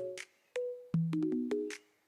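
Background music: a soft electronic beat with synth keyboard notes, a bass line and light hi-hat clicks, dropping out briefly between phrases.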